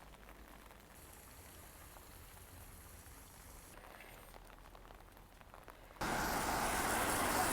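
Rain falling, faint at first; about six seconds in, it cuts suddenly to a much louder, even wash of rain and street noise.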